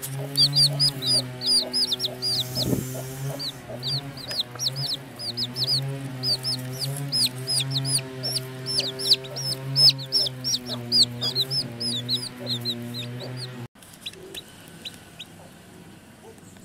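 Baby chicks peeping rapidly, a stream of high, downward-slurred cheeps, over a sustained low musical drone. The music cuts off suddenly near the end, leaving a few fainter peeps.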